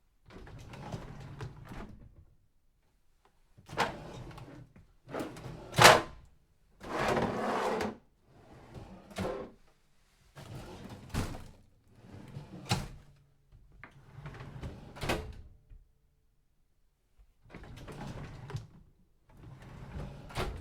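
A drawer rolling open and shut, about ten strokes in a row of a second or two each, several ending in a sharp knock as it closes; the loudest knock comes about six seconds in.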